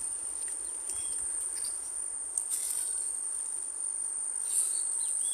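Insects chirring in the marsh grass: one steady, high-pitched continuous buzz with no break.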